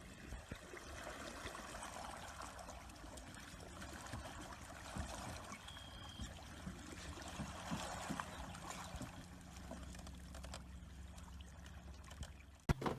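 Faint sloshing and trickling water with scattered small knocks, and one sharp knock near the end.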